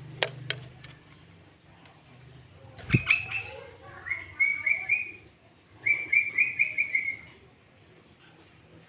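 Sooty-headed bulbul singing: two phrases of quick repeated chirping notes, the first about three seconds in and the second about six seconds in. A few sharp clicks come near the start, with a knock just before the first phrase.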